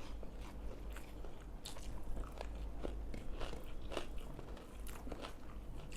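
Close-up eating sounds: chewing and crunching of a rice-and-pepper-chicken meal, with irregular small clicks and smacks from the mouth.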